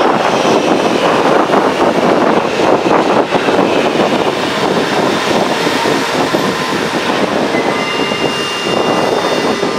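Electric passenger train moving along the station track: a loud, steady rumble of wheels on rails, with faint high steady tones coming in during the last couple of seconds.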